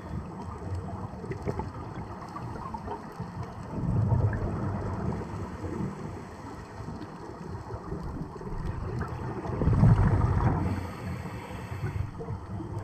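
Scuba exhalation bubbles heard underwater: a low, muffled bubbling rumble that swells into two louder bursts, about four seconds in and again near ten seconds, in the rhythm of a diver's breathing.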